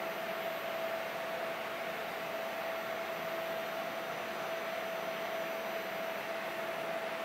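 A motor or fan running steadily: a constant mid-pitched whine over an even, airy hiss.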